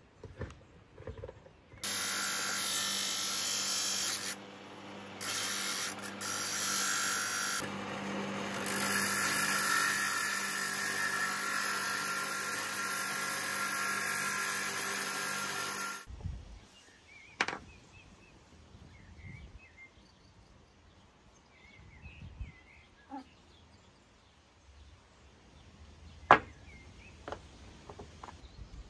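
Handheld power tool running for about fourteen seconds, easing off briefly twice as its load changes, then switched off. Afterwards, a few light knocks and one sharp knock near the end.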